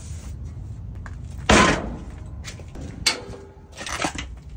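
Steel rear barn door of a PJ dump trailer swung shut with a loud metallic bang about a second and a half in, followed by smaller clanks of the door latch being worked near the end.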